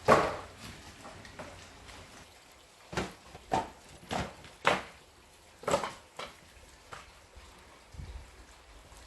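Split firewood logs being set down on a woodpile, making a string of sharp wooden knocks. The loudest is right at the start, then a quick run of about six knocks in the middle and a few fainter ones near the end.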